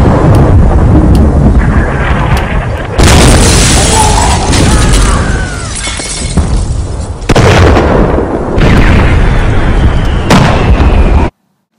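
Battle sound effects: a loud, continuous rumble of explosions, with sudden louder blasts about three seconds in and several more near the end, cutting off abruptly just before the end.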